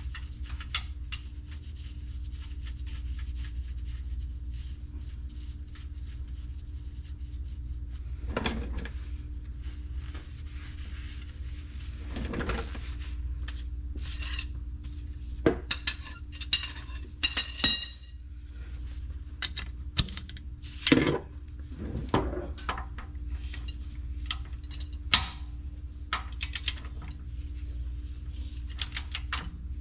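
Metal tools and parts clinking and clattering as they are handled, in irregular sharp knocks, a few of them ringing, with a louder cluster of clinks about halfway through. A steady low hum runs underneath.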